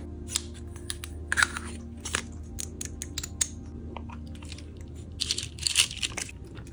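Sharp clicks from a metal makeup compact and an engraved brass case being handled, their lids and clasp snapping, then a dense run of light clicking and rattling a little past five seconds in as fingers stir loose pearls and rhinestones inside the open metal case.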